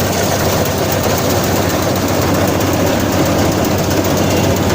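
Combine harvester's engine running steadily with a constant low hum.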